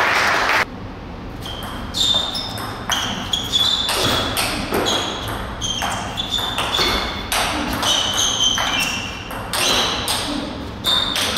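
Table tennis rally: the ball clicks off bat and table in quick alternation, each hit with a short, bright ping, about two hits a second. A loud rush of noise cuts off about half a second in, before the hits begin.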